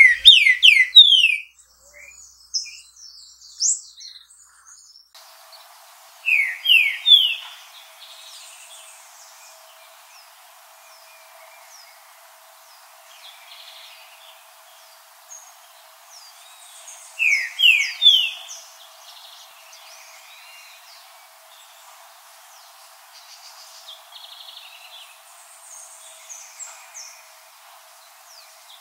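Green-winged saltator (trinca-ferro) singing: three short phrases, each a quick run of three or four loud whistled, slurred notes, spaced several seconds apart. Faint high chirps of other birds come in between.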